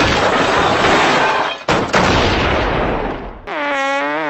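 A loud, rough noise with no clear pitch fills the first three and a half seconds, dropping out briefly partway through. Then comes a long, wavering, buzzy fart blown into a handheld megaphone, which amplifies it.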